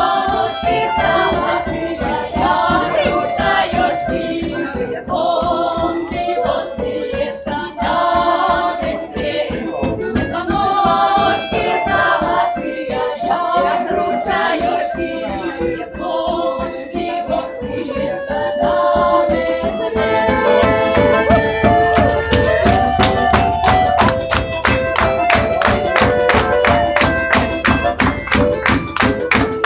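A women's folk ensemble singing a Belarusian folk song with instrumental accompaniment. About twenty seconds in, the music turns into a faster dance tune with steady rhythmic clapping.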